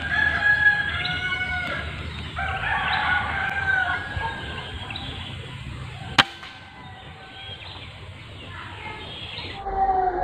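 A rooster crows twice in the background, then a single sharp air rifle shot cracks about six seconds in.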